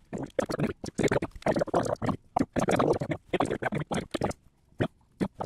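Rapid, garbled chatter like a voice played back fast-forward, in quick choppy bursts with no words that can be made out.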